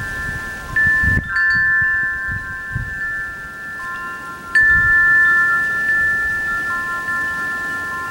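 Wind chimes ringing: several overlapping metallic tones that ring on and fade slowly, struck afresh about a second in and again a little past halfway.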